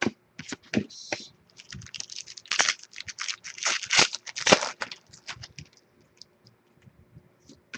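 Trading cards and their foil pack wrappers being handled: quick clicks, snaps and crinkly rustling as cards are slid and flipped and a pack is worked open, busiest in the middle and thinning out near the end.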